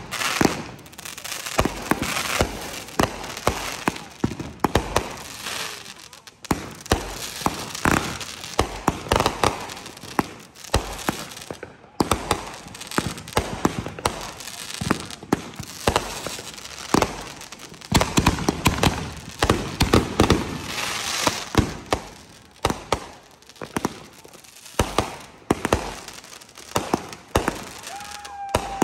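Consumer aerial fireworks firing a long volley: launch thumps and bursts go off several times a second with crackling between them. A brief whistling tone comes near the end.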